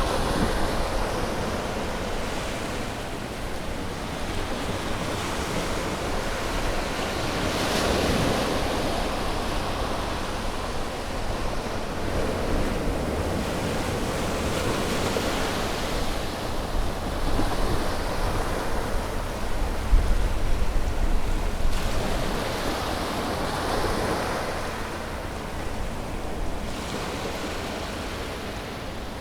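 Sea waves breaking on a shore, a continuous wash of surf that swells as each wave comes in, with a low wind rumble on the microphone.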